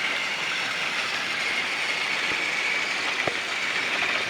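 Battery-powered Trackmaster toy train's motor and gearbox whirring steadily with a high whine as it runs along plastic track, with a couple of small clicks near the end.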